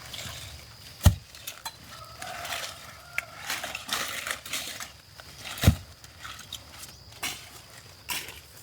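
Scattered knocks and clinks, with two heavy thumps: one about a second in and one just past halfway.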